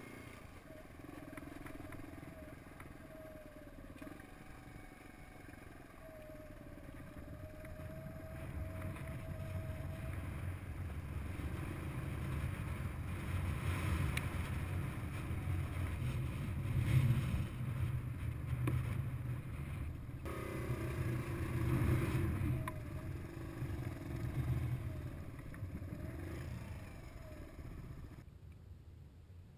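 Suzuki DR200's single-cylinder four-stroke engine running as the dirt bike rides along a rough dirt track, its sound rising and falling with the throttle and loudest in the middle. Near the end the bike stops and the engine is switched off.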